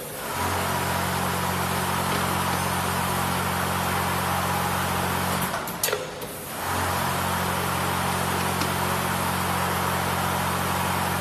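Vibratory bowl feeders of a scoop feeding machine running with a steady low electric hum. The hum cuts out about five and a half seconds in, with a few clicks, and starts again about a second later.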